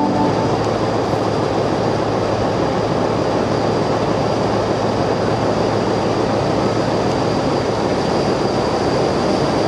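Heritage red electric train set F1 running slowly into the platform: a steady rumble with a low, even hum.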